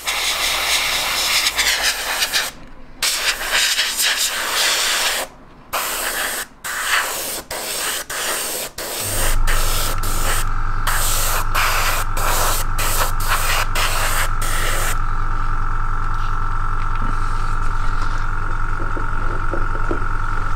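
Airbrush spraying in short hissing bursts with brief gaps as the trigger is worked. About 9 s in, the airbrush compressor starts with a steady hum and a high whine, and runs on after the spraying stops about two-thirds of the way through.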